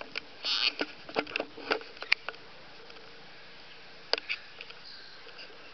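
Irregular short clicks and rustles, a cluster in the first two seconds and a few more about four seconds in: footsteps on grass and handling noise as the camera is carried up close.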